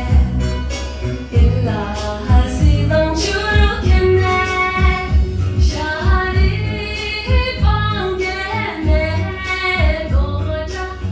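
A woman singing a Tibetan song over music with a steady beat.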